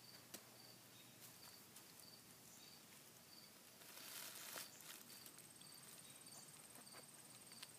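Near silence: faint crickets chirping in a slow, even rhythm, with a high thin trill above. About four seconds in, a brief soft watery swish as staghorn sumac berry heads are rubbed in a glass bowl of water.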